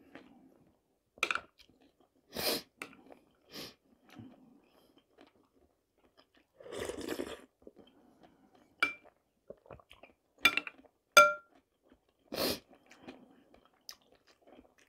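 Close-up eating sounds: a person chewing a spoonful of okroshka, with scattered short wet clicks and crunches and quiet gaps between. Three brief ringing clinks of a metal spoon against a glass bowl come in the middle.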